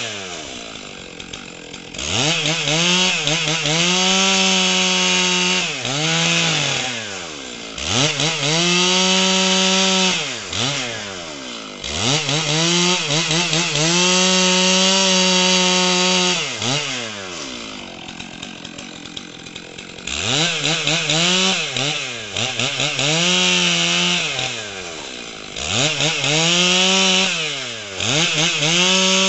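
Stihl MS 661 two-stroke chainsaw cutting through a log: it is throttled up to a steady high pitch for a few seconds at a time while the chain bites into the wood with a hiss, then drops back toward idle, about seven times over.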